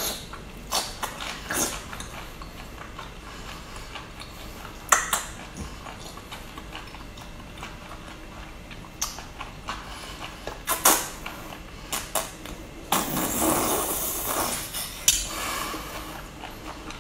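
Close-miked eating: a long, wide starch noodle sheet (lapi) dipped in chili oil being slurped in and chewed, with scattered sharp clicks and smacks and a longer, louder noisy stretch about thirteen seconds in.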